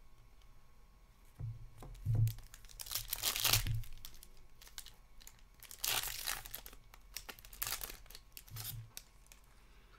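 Foil trading-card pack wrappers being torn open and crinkled by hand, in irregular crackly bursts that are loudest about three and six seconds in.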